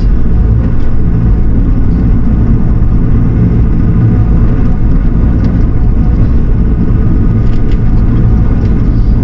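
Diesel engine of a compact loader or tractor running steadily under the operator, heard up close from the machine's cab.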